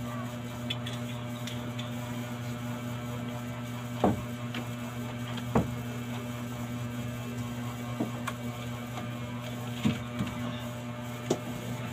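A steady low electrical hum, with about six sharp clicks and knocks from kitchen items being picked up and set down. The loudest knocks come about four and about five and a half seconds in.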